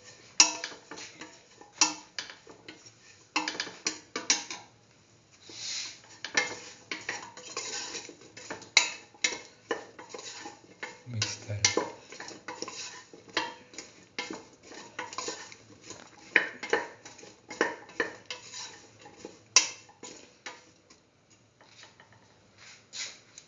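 A spatula scraping and knocking against a cooking pan as chopped ash gourd and onion are stirred with spice powder, in irregular strokes of one or two a second.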